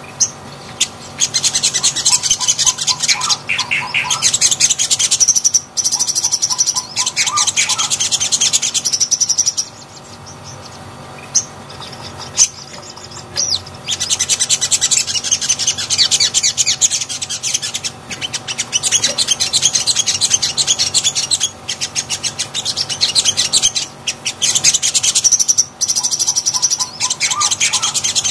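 Sogon sunbird (sogok ontong) singing: long runs of rapid, high-pitched twittering trills, with a few lower piping notes near the start and the end, and a pause of a few seconds near the middle.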